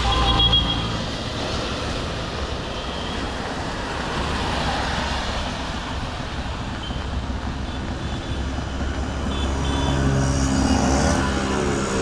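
Road traffic on a wet city street: tyre noise and vehicle engines, with an engine growing louder near the end as a vehicle comes close.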